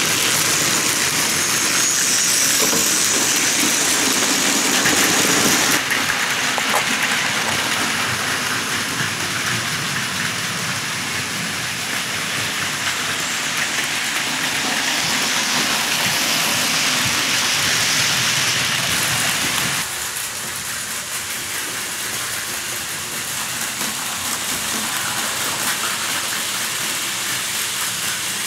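Plarail Advance toy trains and N gauge model trains running on their tracks: a steady, even rattling noise from the small motors and wheels on the rails, which shifts in level about six seconds and again about twenty seconds in.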